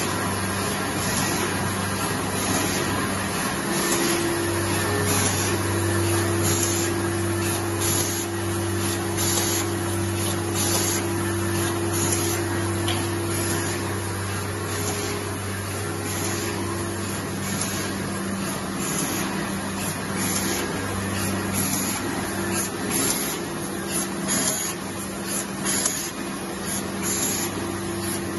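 Bobst SP 102-E II flatbed die-cutting machine running: a steady mechanical hum with a regular, evenly repeating clack from its cyclic sheet-by-sheet stroke.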